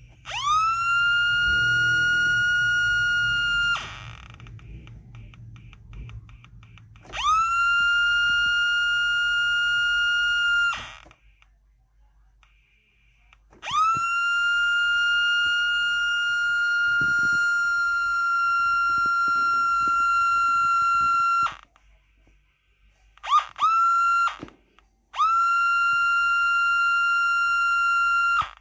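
A 555-timer light-activated alarm circuit sounding a steady, loud, high electronic tone that swoops up briefly each time it starts. It switches on and off several times: three long stretches of about three to eight seconds, two quick blips, and a last long one. There are faint ticks in the gap after the first tone.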